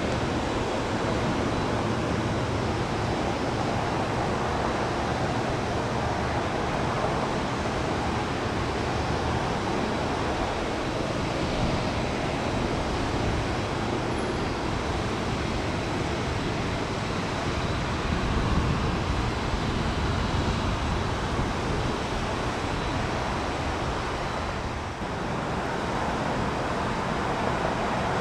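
Steady rushing roar of jet airliner engines, holding level without a clear rise or fall.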